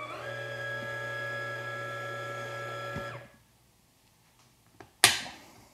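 Option-O Lagom P100 98 mm flat-burr coffee grinder's motor running with a steady whine; its tone changes just after the start as it speeds up to clear out remaining grounds, then it spins down and stops about three seconds in. A sharp knock at the grinder near the end.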